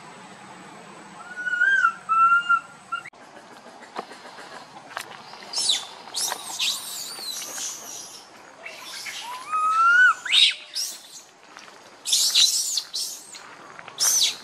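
High-pitched animal calls: short chirps and squeaks sweeping down in pitch in quick clusters, with a few clear whistled notes, one of them sliding up in pitch near the middle.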